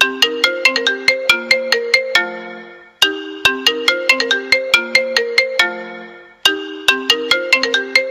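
A short, bright melody of struck, mallet-like notes in the style of a phone ringtone, the same phrase looping about every three and a half seconds.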